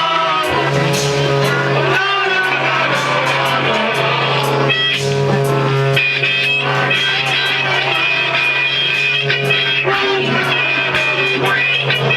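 Live rock band playing, led by guitar.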